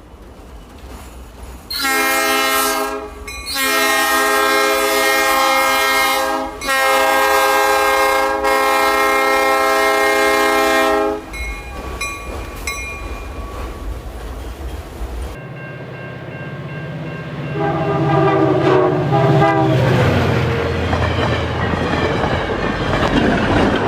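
Locomotive air horn sounding three blasts, one short and then two long. After a shift in the background, a shorter, lower horn blast sounds over a low rumble, followed by a passing train's wheel clatter.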